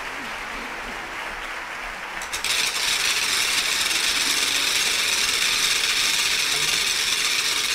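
Rasping, scraping percussion from a folk music ensemble: after a quiet stretch, a steady scraping noise starts suddenly about two and a half seconds in.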